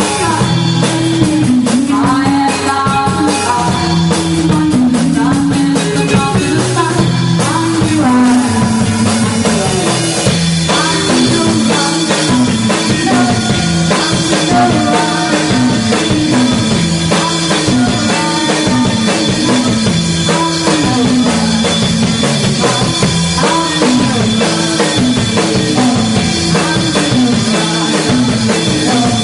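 A rock band playing live at a rehearsal: drum kit, electric guitar and bass, with sung vocals.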